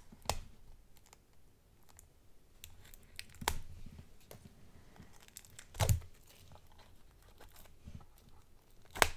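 Plastic shrink-wrap being picked open and torn off a deck of cards: soft tearing and crinkling broken by a few sharp clicks and taps, the sharpest one near the end.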